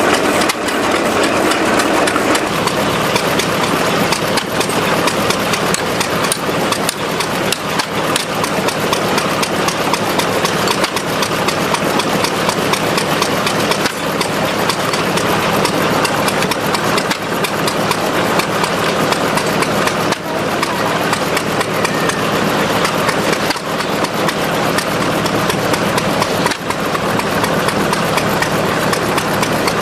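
Small engine running steadily at a constant speed, with a fast, even knocking from its firing.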